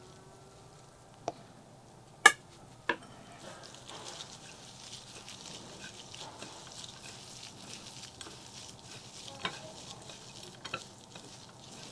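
Close-miked eating sounds of crisp fried fish: three sharp clicks in the first three seconds, the loudest about two seconds in, then a steady fine crackling with a few more clicks near the end.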